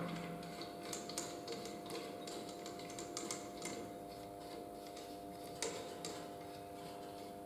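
Faint, sparse metallic clicks and taps of engine parts being handled as the crankshaft main bearing caps are fitted to the block, over a steady low hum.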